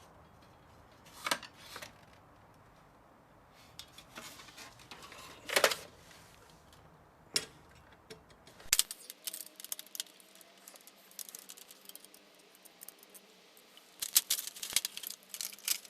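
Light metal parts of a VCR clicking, knocking and rattling as it is taken apart by hand: a few separate sharp knocks, then a quick run of clinking near the end.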